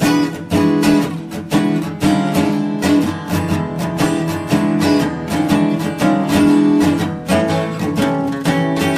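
Acoustic blues music played on acoustic guitar, a steady run of picked and strummed chords.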